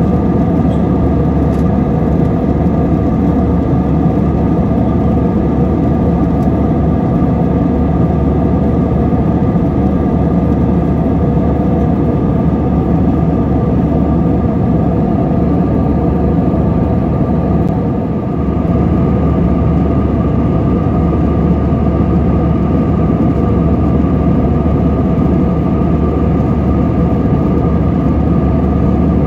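Cabin noise of an Airbus A321 in flight, heard from a window seat: a steady rush of airflow with the hum and whine of its CFM56 turbofan engines, dipping briefly about two-thirds of the way through.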